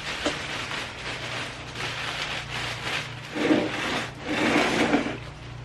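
Plastic wrap rustling and crinkling as it is tugged down off a boxed copier, in several noisy surges from about two to five seconds in.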